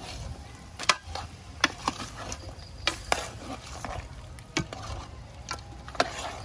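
A long metal spatula scraping and clinking against a metal cooking pot as chicken pieces are stir-fried, with a low sizzle underneath. The strokes come irregularly, roughly once a second.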